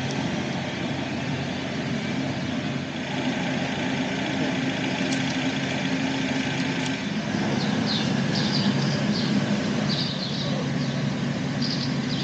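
Steady vehicle running noise with a low, even hum. From about halfway through, short high chirps come in over it.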